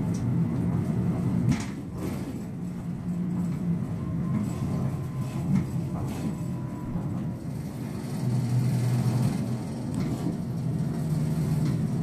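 Hino Poncho small bus driving, heard from inside the passenger cabin: the diesel engine's steady low drone, with its note dipping about two-thirds of the way through and picking up again, and a couple of short knocks from the cabin.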